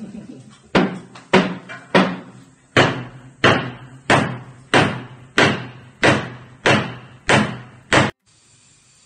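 Steady hammering on wood up in the ceiling framing: about a dozen heavy blows, roughly three every two seconds, each ringing briefly. It stops abruptly a little before the end.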